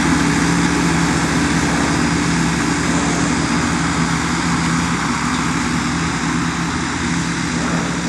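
Engine of a large Jacobsen ride-on mower running steadily under load while mowing, a constant drone that grows a little fainter in the second half.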